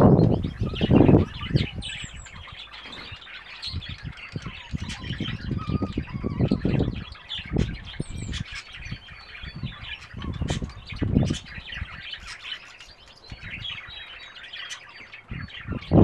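European goldfinches calling in a run of short, high chirps and twitters. Under them comes a low rumble in bursts, loudest in the first second and again about ten seconds in.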